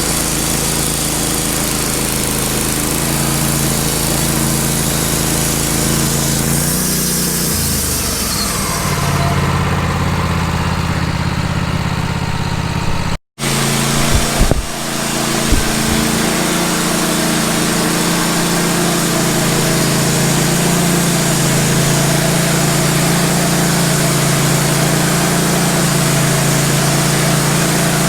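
Sawmill's small gasoline engine running steadily. Its pitch drops about seven seconds in. Near the middle the sound cuts out for an instant, a few knocks follow, and the engine runs on steadily.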